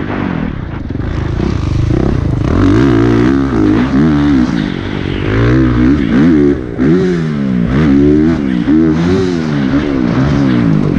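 Honda CRF450RX motocross bike's single-cylinder four-stroke engine revving hard and falling back over and over, its pitch rising and dropping about once a second as the rider works the throttle around the track. Wind rush is on the helmet-mounted camera.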